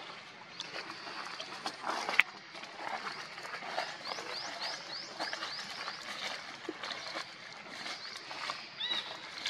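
Animal calls: a short rising chirp repeated about six times in quick succession midway, and another brief call near the end, over scattered clicks and rustles.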